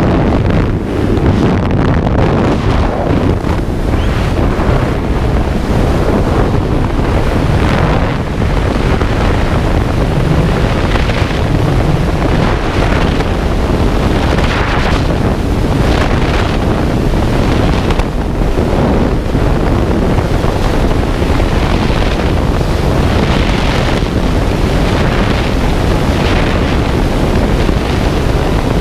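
Loud, steady rush of freefall wind buffeting a skydiver's camera microphone, surging every second or two.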